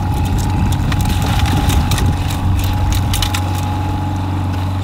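A boat's outboard motor running steadily, with irregular sharp clattering knocks as a landing net holding a coho salmon is lifted over the side and onto the deck.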